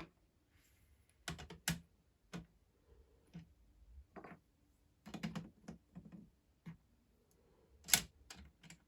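Hard plastic Lego pieces being handled, giving irregular small clicks and light knocks, a few of them close together.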